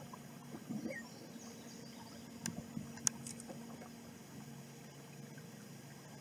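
A canoe moving on calm water: soft paddle and water sounds, with a few sharp knocks on the canoe about two and a half and three seconds in, over a low steady hum.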